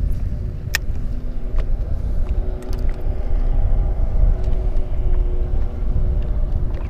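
A steady low rumble with a faint hum over it, and one sharp click a little under a second in.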